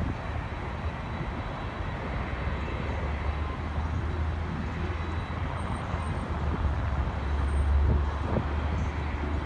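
Steady low rumble of a distant four-engine Airbus A380 airliner on final approach, mixed with road traffic. The rumble swells briefly about eight seconds in.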